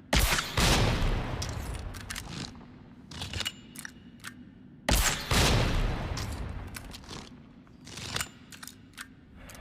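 Blast crossbow sound effect fired twice, about four and a half seconds apart. Each shot is a sudden double crack that fades out over about two seconds, with short clicks and ticks between the shots.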